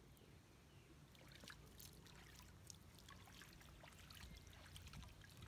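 Faint trickling and splashing of water scooped by hand and poured over a baby monkey, with scattered small drips and splashes.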